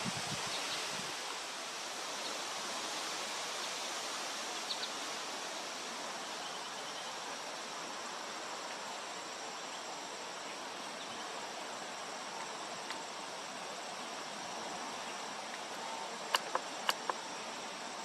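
Evening backyard ambience: a steady rushing background noise with insects trilling in a high, unbroken drone, and a few faint short bird chirps. Near the end come four sharp clicks in quick succession.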